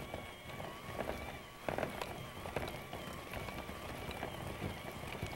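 KitchenAid handheld electric mixer running, its beaters creaming butter and brown sugar together: a steady, slightly wavering motor whine, with a few knocks about two seconds in.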